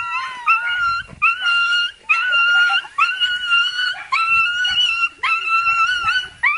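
Dog whining in a run of high-pitched cries, about one a second, each rising sharply and then held: an excited greeting of its owner after a long separation.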